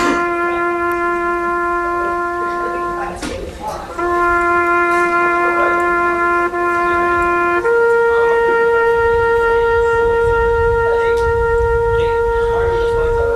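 A horn-like wind instrument holding long, slow notes. Two long notes sound at the same pitch, each about three seconds, and then a higher note is held from about seven and a half seconds in.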